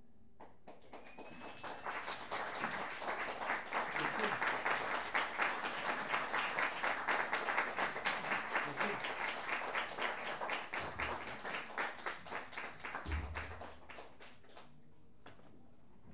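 Audience applauding. The clapping swells over the first couple of seconds and dies away near the end.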